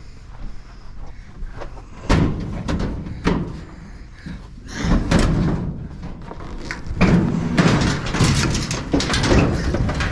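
Scrap metal being handled and loaded: a couple of sharp bangs, a scraping rattle, then a long stretch of dense metal clatter and knocks.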